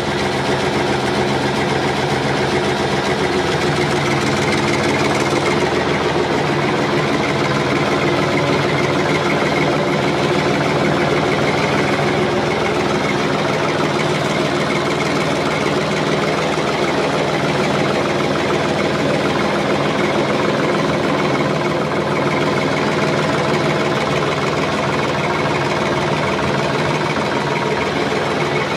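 Heavy farm machinery engine running steadily: a continuous mechanical drone that changes character a few seconds in and again later on.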